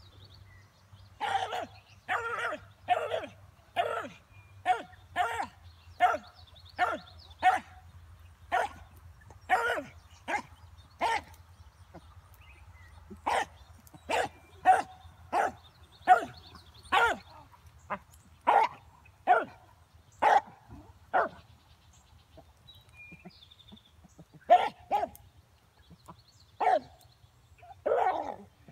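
Rabbit hound barking in a long, steady run of short barks, about one to two a second, stopping for a few seconds near the end and then starting again: a hound giving voice as it runs a rabbit's trail.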